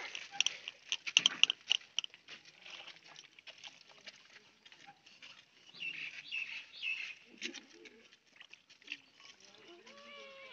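Liquid splashing and sloshing in a plastic pan as a tractor filter is scrubbed and swished by hand, with a quick run of sharp splashes in the first two seconds and softer dribbles after. Birds chirp in the background.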